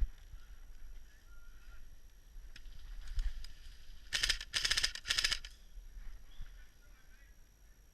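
Three short bursts of rapid full-auto fire from an airsoft electric gun, each under half a second, in quick succession about four seconds in.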